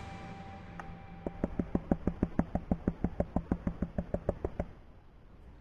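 Hand tapping against a plastic gold pan holding water and crushed rock concentrate, to settle the heavy minerals. The taps come in a quick, even run of about seven a second, starting about a second in and stopping after roughly three seconds.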